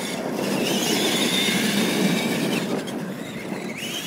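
R/C monster trucks racing across dirt: a high motor and gear whine climbing as they accelerate, then holding, over the rough noise of tyres on dirt, with a second rising whine near the end.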